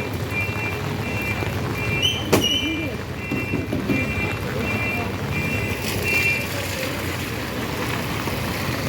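Vehicle running with a steady low rumble, while an electronic beeper repeats about twice a second and stops about six seconds in. A single sharp click comes a little after two seconds in.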